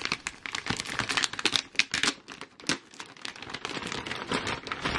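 Large clear plastic bag crinkling and rustling as it is handled and lifted in a cardboard box: a rapid, irregular run of crackles.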